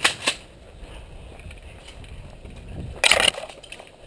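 Two short sharp clacks about a quarter second apart just after a shotgun shot, typical of the shotgun's action being cycled. Then footsteps on a sandy trail, with a brief loud brushing rustle about three seconds in.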